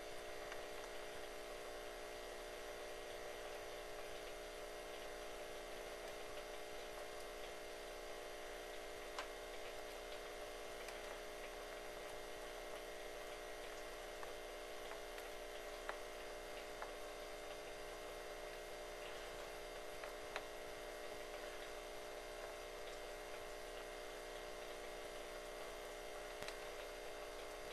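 Deer mouse gnawing on a peeled oak stick: faint scratchy gnawing with a few sharper clicks, over a steady hum.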